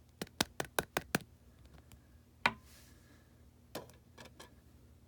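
A quick run of light, sharp clicks, about five a second, then one louder click about two and a half seconds in with a short hiss after it, and a few more clicks near the end. These are plastic clicks from handling trading cards and their plastic holders.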